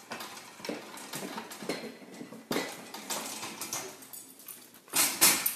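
Metal baby gate rattling and clinking as a dog works its latch handle with its mouth, with irregular knocks and a louder clatter near the end.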